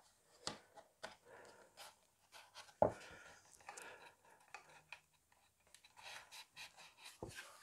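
Hands fitting a carpet strip into a scale model car's interior: soft rubbing with scattered light clicks, and one sharper knock nearly three seconds in.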